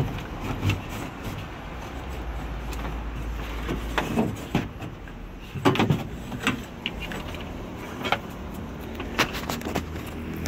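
Scattered clicks, knocks and rattles of hands working the bus's ceiling evaporator cover loose, its screws and panel being handled, over a low hum that stops about four seconds in.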